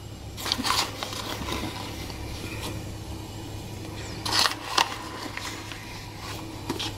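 Steel spoon scooping custard powder out of its packet and tipping it into a glass bowl: rustling of the packet and light taps of the spoon, sharpest about four and a half seconds in, over a low steady hum.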